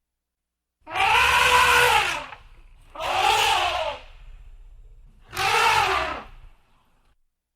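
Elephant trumpeting: three loud calls of about a second each, each rising and then falling in pitch.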